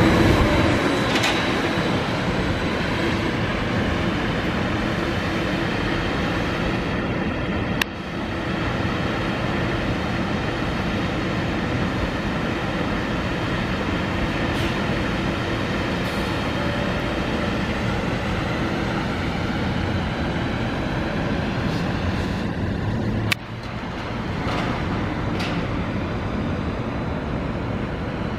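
Steady running rumble of an MBTA trackless trolley, an electric trolleybus, pulling away and turning, mixed with street noise and a faint steady hum. There are two sharp clicks, about eight seconds in and again later, each followed by a short drop in the noise.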